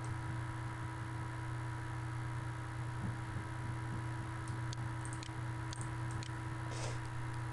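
Steady low electrical hum from the recording setup, with a few faint computer mouse clicks about four and a half to five and a half seconds in.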